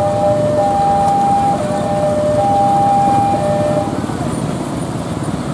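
Level-crossing warning alarm sounding a two-tone electronic signal, a higher and a lower note alternating about once a second, over the running of motorcycle engines. The alarm stops about two-thirds of the way through, leaving the traffic noise.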